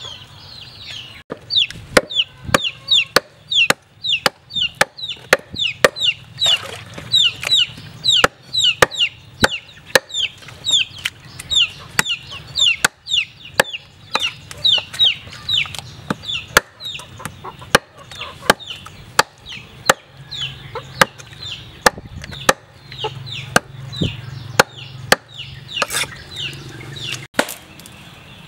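A meat cleaver chopping cow tripe and meat on a thick wooden chopping block, with sharp blows at roughly two a second. Chicks cheep with short, high, falling peeps all through.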